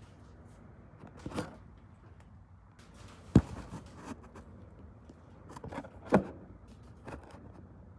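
Handling noise from work on electrical wiring and parts: a few scattered sharp knocks and clicks. The loudest comes about three and a half seconds in and another about six seconds in.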